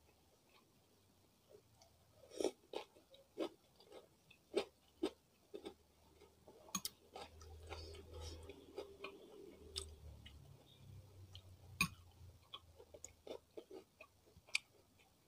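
Close-miked chewing of crunchy pickled cucumber (acar timun), a run of sharp crisp crunches with softer wet mouth sounds in between.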